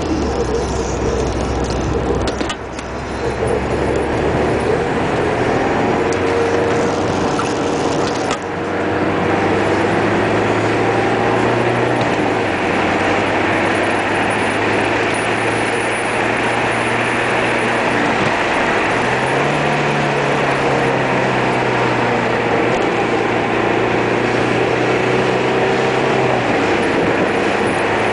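Car engine and tyre noise heard from inside a moving car: a steady drone whose engine note steps down and back up a few times along the way.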